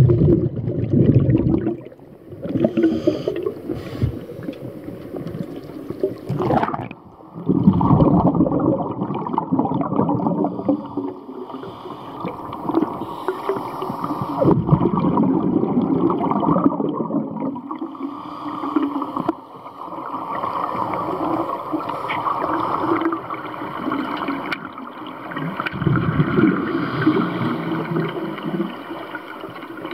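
Underwater breathing of a scuba diver through a regulator. Exhaled bubbles gurgle and rumble in repeated bursts about every five to six seconds, with quieter stretches between breaths.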